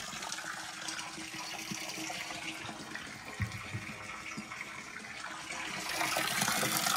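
Heavy stream of water pouring into a horses' water trough as it fills: a steady splashing rush that grows louder near the end.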